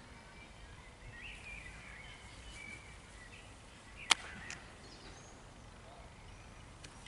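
A plastic flying disc smacks into a player's hands as it is caught about four seconds in, one sharp slap followed by a softer tap. Birds chirp faintly in the background.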